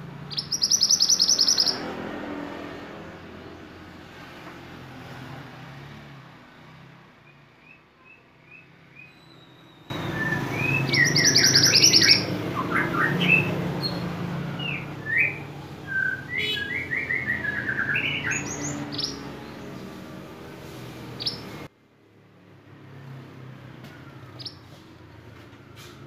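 Male minivet (mantenan) singing: rapid high trills and runs of short chirps and whistled notes, loudest and busiest in a bout about ten seconds in, over a steady low hum.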